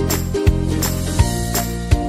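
Background music with a steady beat, a strike about every three quarters of a second over held notes.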